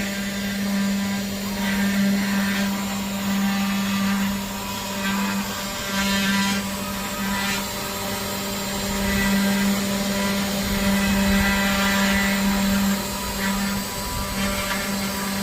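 Custom five-axis CNC router running: the spindle gives a steady hum, and a rasping cutting noise swells and fades every few seconds as the tool works through wood.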